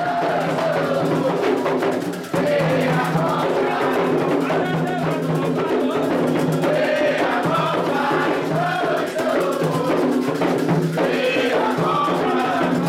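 Candomblé ritual music: atabaque hand drums playing a driving rhythm under a group singing a chant. The sound dips briefly about two seconds in, then continues.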